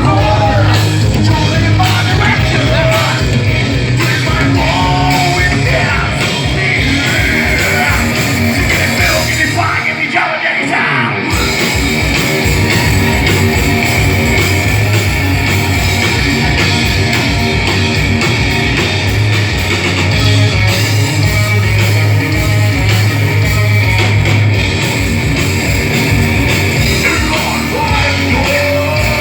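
A rock band playing loud and fast, with a driving beat, distorted guitar and vocals. About ten seconds in, the low end and drums cut out for about a second, then the full band crashes back in.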